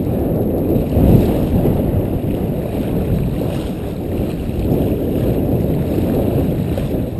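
Steady low rumble of wind buffeting the camera's microphone, with no reel drag or other distinct sound above it.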